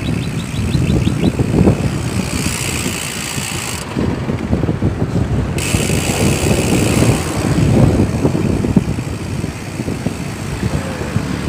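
A passing truck's engine and road noise, loud and swelling, drown out a Sagmit V12 mountain-bike hub's freewheel, whose quick ticking is faintly heard for about the first second and a half.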